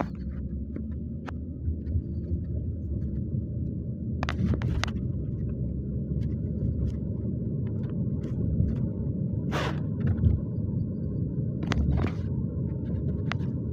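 Road noise inside a moving car's cabin: a steady low rumble. A few short clicks and knocks sound over it, a cluster about four seconds in and more near the end.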